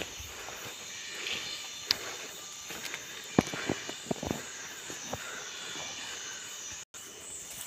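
Insects chirring steadily, with scattered footsteps and knocks on a dirt path, the sharpest about three and a half seconds in. The sound drops out for an instant near the end.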